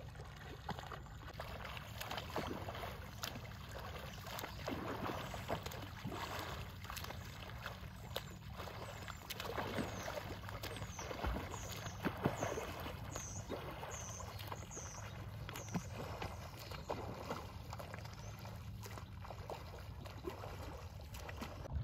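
Water splashing and lapping in calm lake water: a swimmer's freestyle arm strokes and paddle strokes from a paddle board alongside, coming irregularly.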